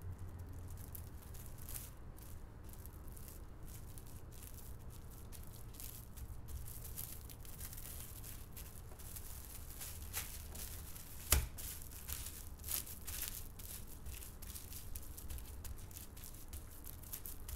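Plastic cling film crinkling and rustling as it is folded over pastry dough and pressed flat by hand, with one sharp tap about eleven seconds in.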